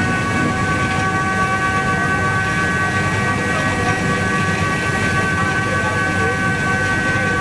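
Sany SR150C rotary drilling rig running, its diesel engine rumbling under a steady, high, multi-toned hydraulic whine as the auger goes down into the bore.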